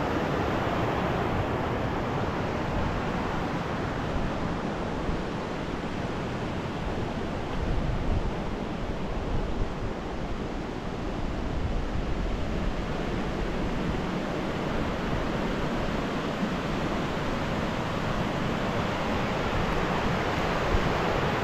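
Rushing river water: a steady, even roar of current over rocks with no break.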